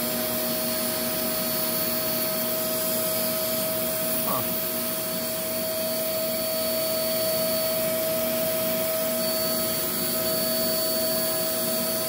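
Hoover WindTunnel V2 upright vacuum's suction motor running at a steady pitch, with the hose end sealed against a water-lift vacuum gauge so that the motor is pulling against a closed-off hose.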